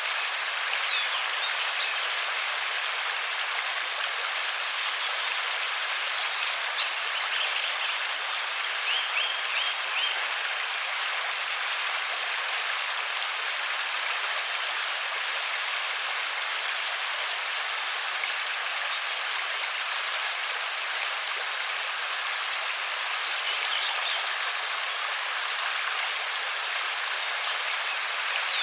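Steady rush of flowing river water with many small birds chirping and trilling over it; two sharper chirps stand out, one just past the middle and one about three quarters of the way through.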